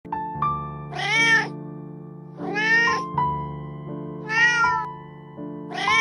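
Kitten meowing four times, about every second and a half, each a short arched call, over steady background music.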